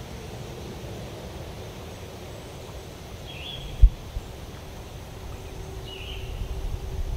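Outdoor ambience: a bird gives a short rising call twice, about three seconds apart, over a steady low rumbling noise. A single dull thump comes a little under four seconds in, and the rumble grows louder near the end.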